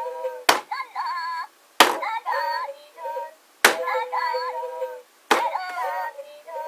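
McDonald's Minion toys' small built-in speaker playing short bursts of high, squeaky Minion-style singing and gibberish, each burst set off by a sharp click. There are four clicks and bursts, about a second and a half apart, and the sound is thin with no low end.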